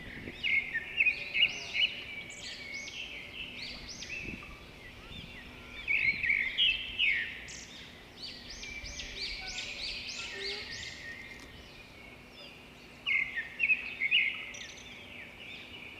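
Birds singing: clusters of quick, high, arching chirps that come and go every few seconds.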